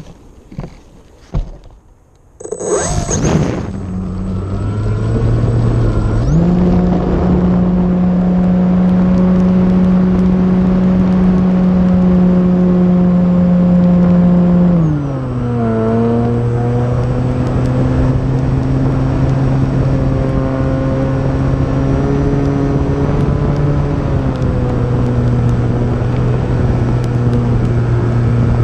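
Electric motor and propeller of an E-flite Timber RC plane, heard from on board. A few knocks come first, then about two seconds in the motor spins up to a loud, steady, pitched drone over wind noise. Its pitch steps up about six seconds in and glides down about fifteen seconds in as the throttle changes.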